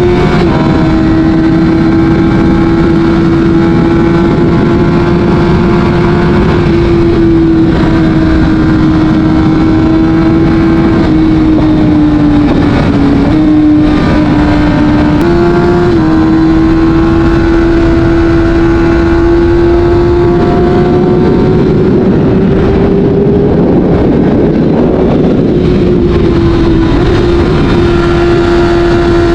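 Kawasaki Ninja ZX-6R's inline-four engine through an Akrapovic exhaust, running at a steady high pitch while cruising. The pitch sags briefly about halfway through, then steps back up and holds, with steady wind and road noise underneath.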